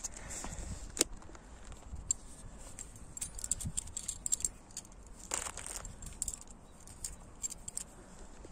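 Light metallic jingling and clicking, irregular and repeated, with one sharp click about a second in, over a low rumbling background.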